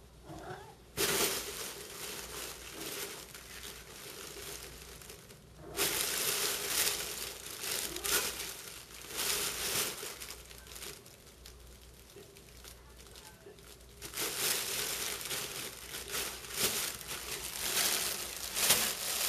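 Crinkle tunnel cat toy crinkling in long bouts as cats scramble and wrestle in it. The crinkling starts suddenly about a second in, eases off in the middle, and picks up again for the last few seconds.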